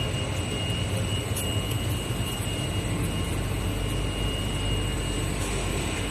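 Machinery of a rubber co-extrusion and microwave curing production line running: a steady machine hum and whir with a thin, steady high whine over it.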